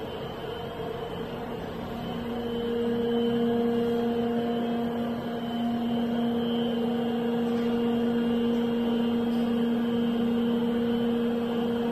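Hydraulic lift's electric motor and pump running with a steady hum while the loaded platform rises, growing louder about two seconds in.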